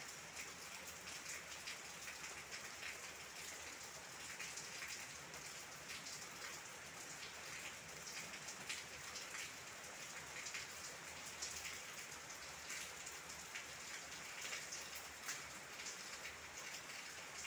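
Steady rain falling on leaves: an even hiss with many close, irregular drop taps.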